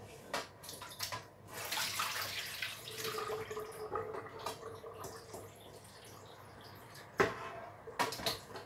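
Water splashing and sloshing as raw beef chunks are rinsed by hand in a stainless steel pot in a kitchen sink, with a few sharp clinks near the end.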